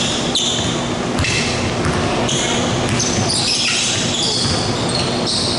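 Basketball being dribbled on a hardwood gym court during play, with repeated short, high sneaker squeaks.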